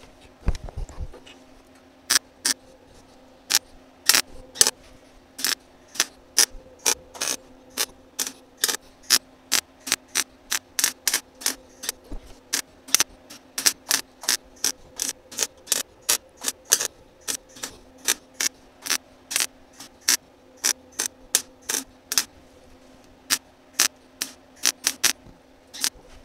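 Welder laying short stitch welds on a sheet-metal patch panel: a rapid string of brief arc bursts, about two or three a second, one short weld after another. A steady low hum runs underneath.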